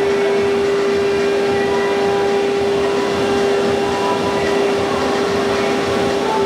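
CNC router spindle running at high speed with a steady high whine, its conical engraving bit cutting into a board with continuous cutting noise.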